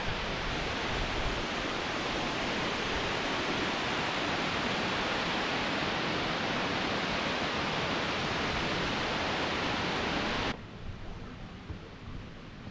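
Steady rushing of a mountain waterfall cascading down a rocky gorge, cutting off abruptly about ten seconds in to a much quieter outdoor background.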